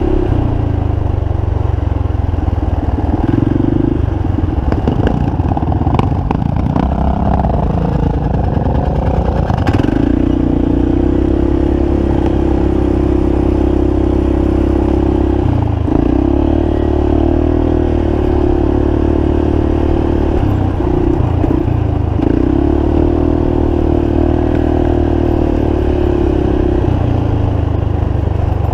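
Quad ATV engine running hard at steady revs, its note dropping out briefly about every five or six seconds. Between about four and ten seconds in come rough clattering and a couple of sharp knocks.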